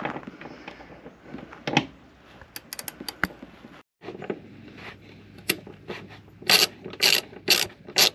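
Ratchet wrench working on the front seat bolts. Scattered metal clicks and clinks come first, then about two-thirds of the way in a steady run of ratcheting strokes, roughly two a second.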